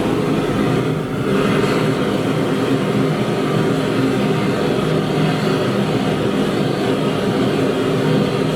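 A machine running steadily with a low, even hum. Its sound dips and changes briefly about a second in.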